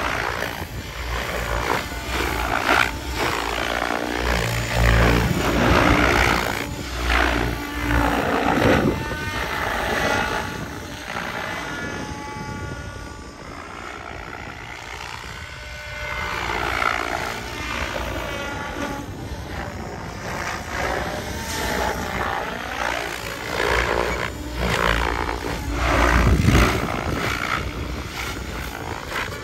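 Electric RC helicopter flying aerobatics: rotor blades whooshing and the motor whining, the pitch gliding up and down with each manoeuvre. The sound fades when it flies farther out about halfway through and grows loud again on the close passes.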